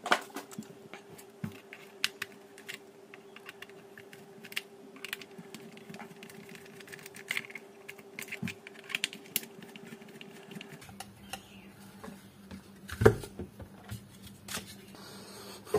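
Irregular light clicks and taps from hands and small tools working on a small plastic Bluetooth speaker, with one louder knock about thirteen seconds in. Under them runs a faint steady hum that drops to a lower pitch about eleven seconds in.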